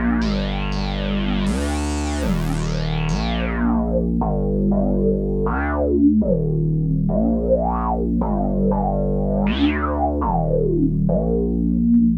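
Dreadbox Typhon monophonic analog synthesizer playing a factory preset: a low bass line whose brightness sweeps up and down on each note, reaching high and bright in the first few seconds and staying lower after that.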